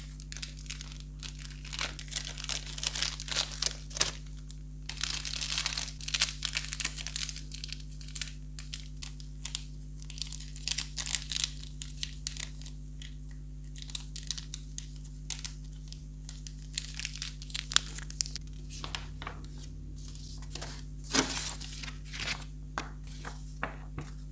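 Toy packaging being handled and torn open: irregular crinkling, rustling and tearing of plastic and cardboard in quick clusters, over a steady low electrical hum.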